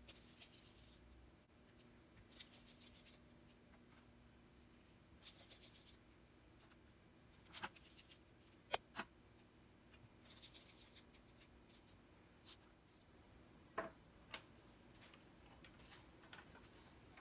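Faint handling sounds of cookie dough balls being set down one by one on a parchment-lined baking tray: soft paper rustles every few seconds, with a few light sharp clicks near the middle, over a low steady room hum.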